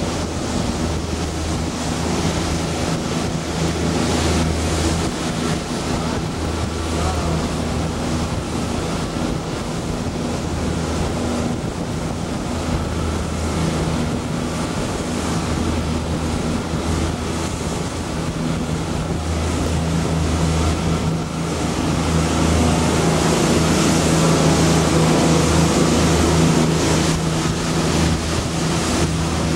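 Boat engine running steadily under way, a constant low drone, with wind and rushing water noise over it; it grows a little louder about two-thirds of the way through.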